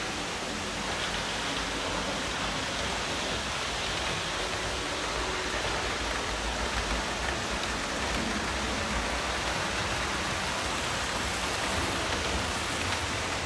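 OO-gauge model Inter-City 125 train running on sectional track, its wheels and motor making a steady rushing rattle with a low rumble underneath.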